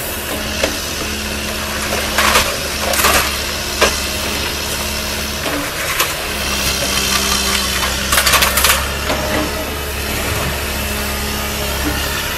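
Liebherr 934 demolition excavator's diesel engine running steadily while its grapple handles broken concrete, with several short bursts of clattering and crunching rubble, the busiest near the start and again about two-thirds through.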